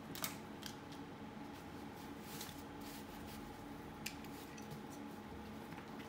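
Plastic five-point harness buckle on a baby stroller being unfastened: a sharp click just after the start, then a few lighter clicks and rattles as the buckle pieces and straps are handled.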